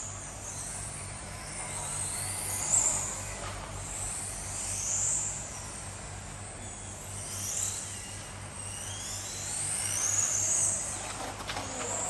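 Radio-controlled racing cars running laps, their motors whining high and sweeping up and down in pitch as they accelerate and brake, several cars overlapping, over a steady low hum.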